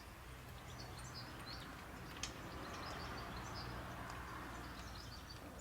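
Faint birds chirping in the background over a low steady hum, with a single light click about two seconds in.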